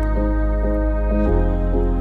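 Background music: a calm new-age track with a quick repeating run of notes over a deep held bass note that changes about a second in.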